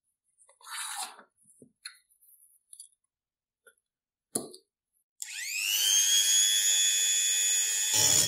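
A Dremel-type rotary tool with a thin cut-off disc: small clicks and handling noises as the disc is fitted and the collet tightened, then about five seconds in the motor switches on, its whine rising quickly in pitch and settling into a steady high whine. Near the end the spinning disc touches the iron's handle with a short grinding jolt.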